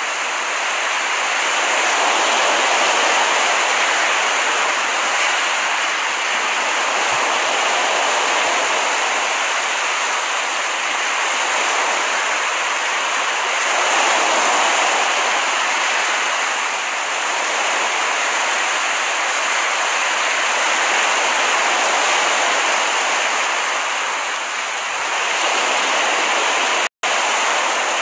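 Ocean surf washing onto a beach, a steady rush that swells and eases every several seconds. It cuts out for an instant about a second before the end.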